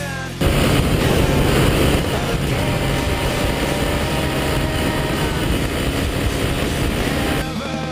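Sport motorcycle riding along the road, its engine running under a dense rushing noise, heard from a camera mounted on the bike. It cuts in suddenly about half a second in and stops abruptly near the end.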